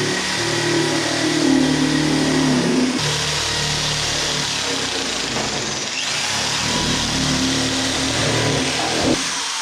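A power tool motor running, its pitch shifting and gliding, with abrupt changes about every three seconds.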